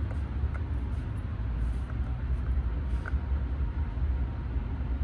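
Steady low rumble of wind buffeting the microphone, with a few faint light ticks; no shot is fired.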